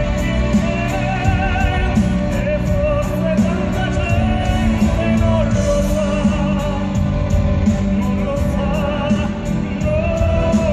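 A male vocal trio singing long held notes with vibrato over a live orchestra with strings and double bass.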